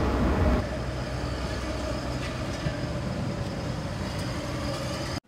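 Steady outdoor street ambience: a continuous hum of traffic and machinery with a faint steady tone in it. It drops a little after about half a second and cuts off suddenly near the end.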